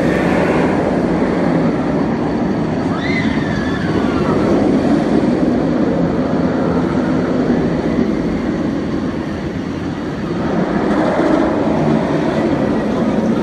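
Great Bear, a B&M inverted steel roller coaster, with its train running along the track: a loud, steady rush of wheels on steel rail. It swells again near the end.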